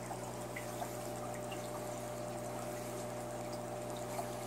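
Aquarium filter and air bubbler running: a steady trickle of water over a constant low hum.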